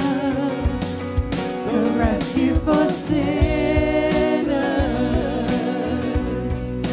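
Live contemporary worship music: a band with drums plays under sung vocals.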